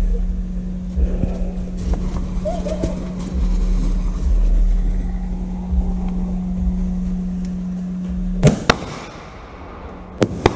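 Small ground firework burning in a shower of sparks over a steady low hum, then sharp pops: two quick bangs about eight and a half seconds in and two more near the end.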